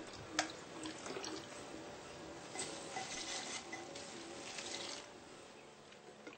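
Water pouring from a plastic bottle and splashing onto plant leaves and soil, strongest from about two and a half to five seconds in, with a few light knocks. Soft background music with a short repeating melody runs underneath.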